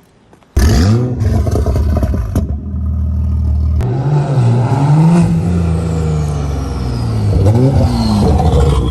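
Car engine revving hard. It starts suddenly about half a second in, and its pitch climbs and drops several times as the throttle is worked.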